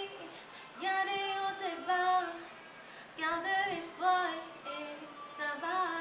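A woman singing: several phrases of held notes that bend up and down between short pauses.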